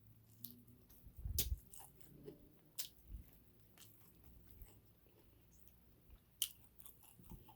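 Close-up eating sounds: quiet chewing and biting of chicken, with scattered short crunches and mouth clicks, the loudest about a second and a half in.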